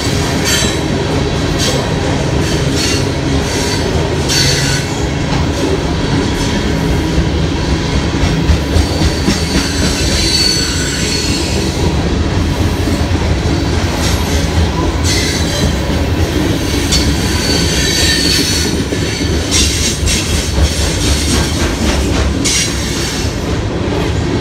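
Coal train's freight cars rolling past close by: a steady rumble and clatter of steel wheels on rail, with high-pitched wheel squeals several times.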